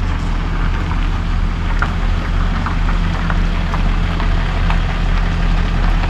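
Tow truck's engine running steadily at a constant low hum.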